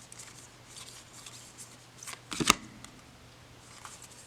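Laminated tarot cards being handled, sliding and rustling against one another with small clicks. There is one sharper tap of the cards about two and a half seconds in.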